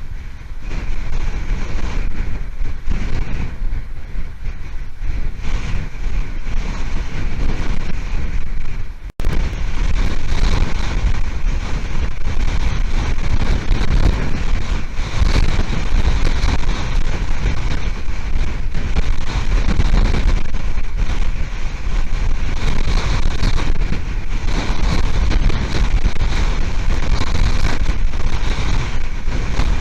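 Hurricane wind buffeting the outdoor nest camera's microphone: a loud, steady rumble of wind noise that swells and eases in gusts. The sound cuts out for an instant about nine seconds in.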